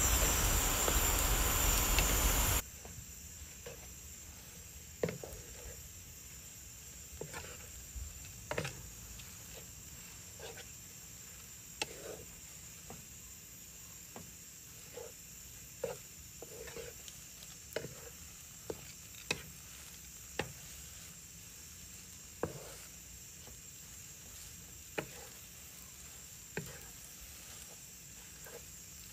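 Glass noodles sizzling in a hot frying pan for the first couple of seconds, cutting off suddenly. After that it is quiet, with scattered light knocks and scrapes of a wooden spatula against the nonstick pan as the noodles are stirred.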